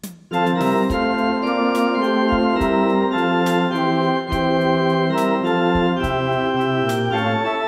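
Technics electronic organ playing sustained, full chords of a slow offertory hymn, coming in about a third of a second in over a steady rhythm-section beat.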